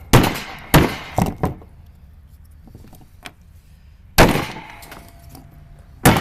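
Hammer blows breaking the brass contacts out of Bakelite fluorescent lamp holders: four sharp strikes in quick succession, then after a pause two more single strikes.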